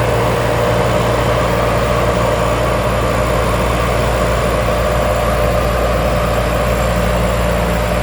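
Rice combine harvester running steadily: a constant low engine drone with a steady hum above it.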